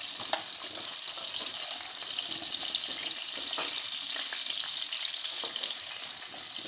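Whole amla (Indian gooseberries) frying in mustard oil in a metal kadhai on a low flame: a steady sizzle, with a few light clicks of a perforated metal spoon as they are stirred.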